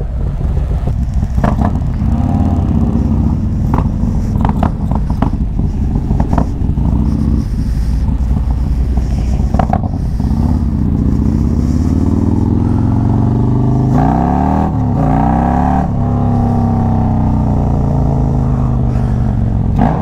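Harley-Davidson bagger's V-twin engine running under way, heard from on the bike. Its pitch climbs and falls several times as the throttle is worked and gears change, most sharply a little past the middle.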